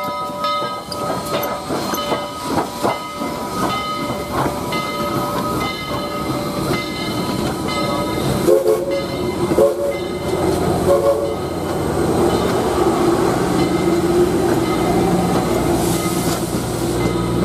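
Southern Railway 4501, a 2-8-2 steam locomotive, passing at close range, its running gear and wheels going by with sharp knocks early on. Its whistle sounds at the start and again in several short blasts about halfway through. The tender and passenger cars then roll past with a steady, building rumble.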